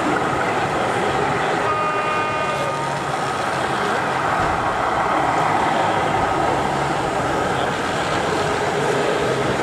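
Steady din of a busy exhibition hall, with a brief chord of steady beeping or whistling tones about two seconds in.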